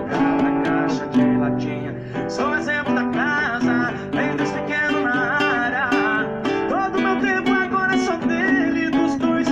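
Strummed acoustic guitar chords in a sertanejo song. From about two seconds in, a wavering melody line rises above the chords.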